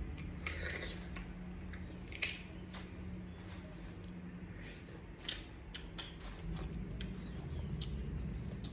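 Eating a large sea crab: scattered small clicks and crunches of shell being broken and chewed, with one sharp crack about two seconds in, over a low steady hum.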